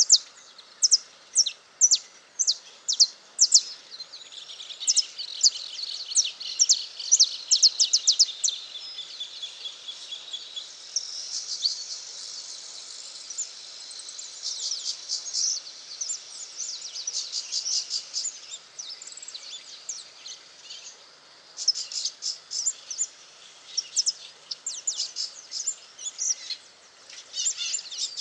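Saffron finch singing: runs of short, sharp, high chirps in quick succession, broken by brief pauses.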